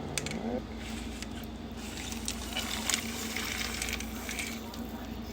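Water running from a kitchen tap as soaked northern beans are rinsed, with a short rising tone at the start and scattered clicks through the running water.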